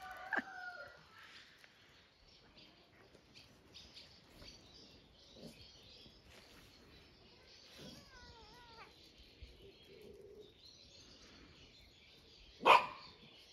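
A cat fending off a playful puppy. The cat gives a short yowl right at the start, then it is mostly quiet, and near the end the cat gives one short, loud spit.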